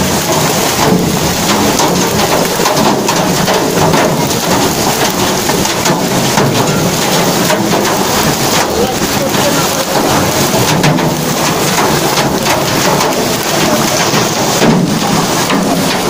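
Hailstorm: hailstones and rain pelting down together in a loud, steady, dense clatter of countless small impacts.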